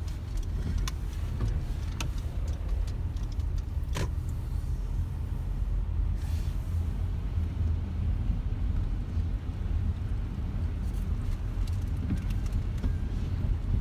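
Steady low rumble of a car, with a few sharp clicks and knocks scattered through it.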